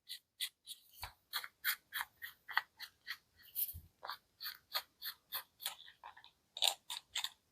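Parts of a plastic rivet nut drill adapter being handled and fitted together by hand: a run of light, irregular clicks and scrapes, about three or four a second.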